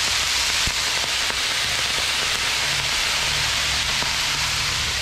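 Rice and vegetables sizzling steadily on a hot propane flat-top griddle, freshly dressed with soy sauce and sesame oil.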